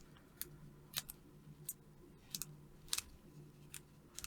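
Scattered light, sharp clicks and ticks, about eight at irregular intervals, from small hand tools working on a circuit board, over a faint steady hum.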